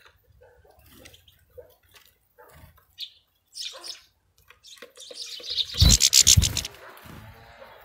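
European goldfinch at a seed tray: small clicks of seed husking and a few short high chirps, then, about six seconds in, a loud close flurry of rapid wingbeats as it flutters over the tray.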